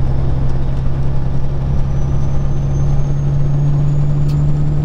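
Peterbilt 379's diesel engine running steadily at highway cruising speed, heard inside the cab as a deep, even drone with road noise. A faint high whine comes in about two seconds in.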